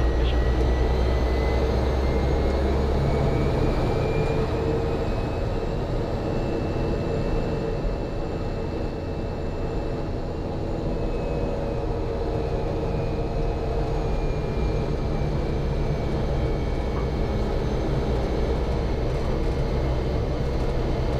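Cessna 208B Caravan's Pratt & Whitney PT6 turboprop engine and propeller running steadily while the aircraft taxis, heard from inside the cockpit. A high turbine whine rises slowly in pitch over the first several seconds, then eases off a little.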